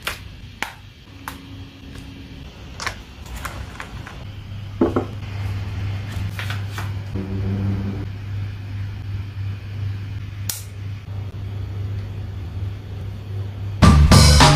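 Plastic clicks, snaps and knocks from handling a Zhiyun Smooth Q4 folding phone gimbal as its arms are unfolded and its telescoping selfie stick is extended, over a steady low hum from about four seconds in. Music starts near the end.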